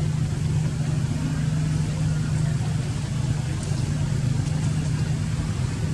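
A steady low mechanical hum, like a motor running nearby, holding one even pitch with no change.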